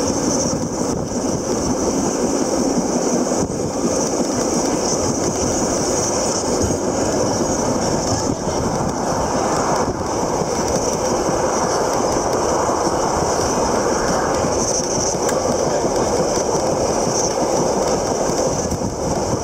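Train running steadily: continuous wheel and carriage noise heard from on board.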